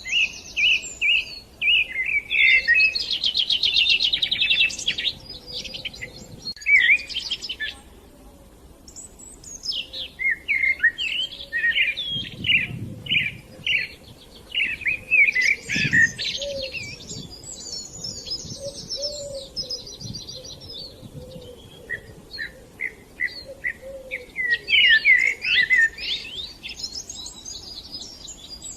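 Several songbirds singing and chirping at once, in overlapping bouts of quick notes and rapid trills, with brief lulls between bouts.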